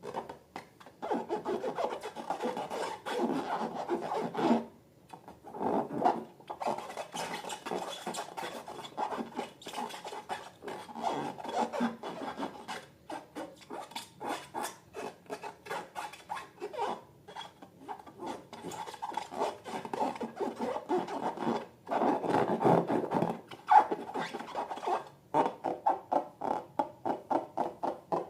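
Rapid rubbing and rasping strokes, in busy runs broken by short pauses, from slime and balloons being handled and worked by hand.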